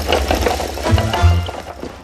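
Cartoon music score under comic scuffle sound effects: a busy, rapid rattling whirl with low thuds about a second in, fading near the end.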